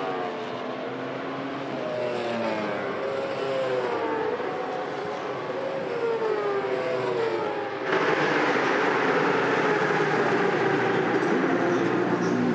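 Racing motorcycle engine with its pitch repeatedly sliding down and back up as the bike slows into the pit lane, growing louder as it approaches. About eight seconds in the sound cuts abruptly to a louder, harsher engine noise close by.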